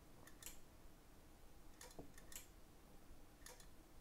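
Near silence with faint, sharp clicks that come in small pairs about every one and a half seconds.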